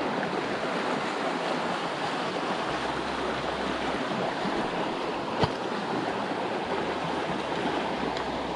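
Steady rush of a small river's flowing water, with one sharp click about five and a half seconds in.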